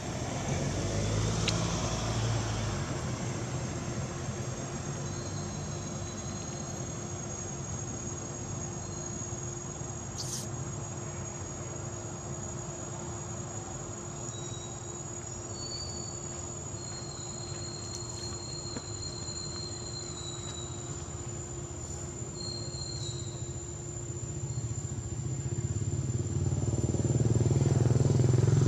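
Insects trilling steadily at a high pitch over a low rumble of traffic. The rumble swells near the end as a vehicle comes closer. A few short high whistles sound in the middle.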